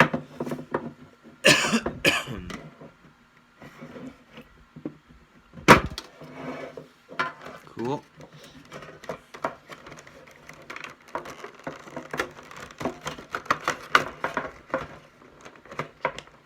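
A metal Bakugan tin and its plastic packaging being handled, making scattered clicks, taps and rustles. There is a rustling burst about a second and a half in, one sharp knock near the middle, and quick small clicks through the second half.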